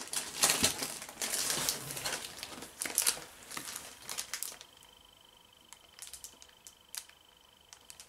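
Packaging in a cardboard box crinkling and rustling as hands rummage through it and lift out a smaller box, busy and crackly for about the first half, then only a few scattered taps and clicks.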